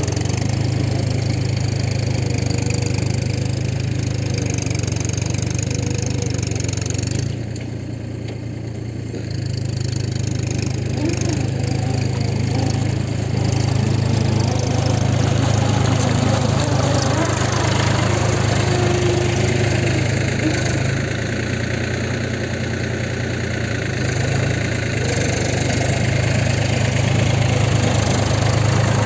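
Mahindra 275 DI tractor's three-cylinder diesel engine running steadily while it works a flooded paddy field. The engine note drops for about two seconds roughly seven seconds in, then comes back up.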